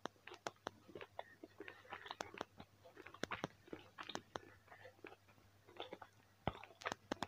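A person chewing a thick, still-moist piece of piri piri beef biltong close to the microphone: faint, irregular wet mouth clicks and smacks.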